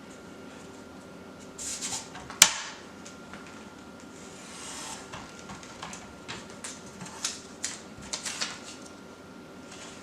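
Utility knife being handled while trimming a post-it note on a cabinet door: light clicks and taps, one sharp click about two seconds in, and a soft scraping hiss of the blade on paper around the middle.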